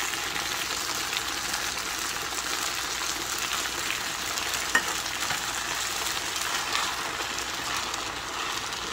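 Spaghetti and tomato sauce frying in a pan, a steady sizzle, with a spatula stirring through the pasta near the end. A single sharp click about five seconds in.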